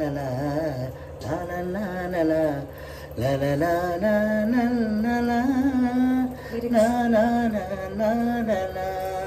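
A man singing a song, in long held notes that waver and glide, in several phrases with short breaks between them.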